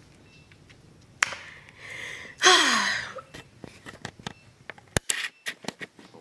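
Mouth sounds of someone eating with her fingers: a click, a loud breathy sound falling in pitch about halfway, then a quick run of wet lip smacks and clicks from chewing and licking her fingers.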